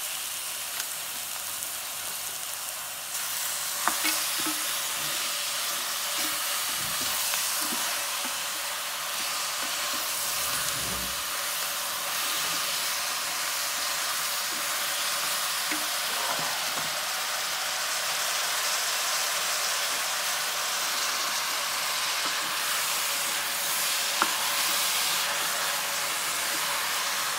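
Mutton pieces frying on chopped onions in a hot pot and being stirred with a wooden spoon: a steady sizzling hiss that grows louder about three seconds in, with a couple of sharp knocks of the spoon against the pot.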